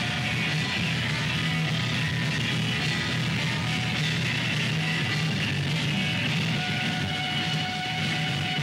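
Live punk rock band playing, with electric guitars, in a dense, steady wall of sound.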